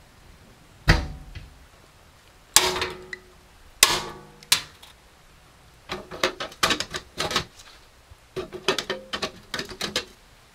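Hard objects knocked and set down on a wooden workbench: four single sharp knocks with a short ring, then two quick runs of light clicking and tapping.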